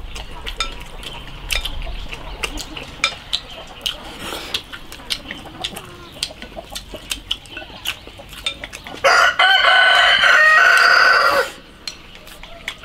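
A rooster crows once, loud and drawn out for about two and a half seconds, starting about nine seconds in. Before it come many small clicks of chopsticks against porcelain bowls, with chewing and slurping.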